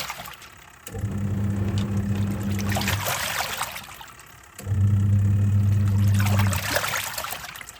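Twin-tub washing machine in its wash cycle. The motor hums low in runs of about two seconds, then stops for a second or so as the pulsator reverses direction, twice in a row. Water swishes and sloshes in the tub, loudest in the pauses.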